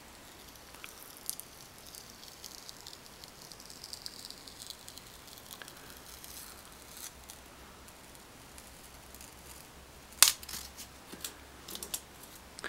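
A sticky label being peeled off the back of a digital tyre tread depth gauge: a faint, crackly tearing of paper and adhesive. A few sharp clicks come about ten seconds in, the first one loud.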